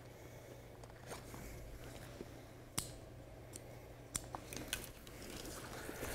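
Hands handling a backpack: pack fabric rustling and straps being pulled, with scattered sharp clicks of buckles, the sharpest about three seconds in. A faint steady low hum lies underneath.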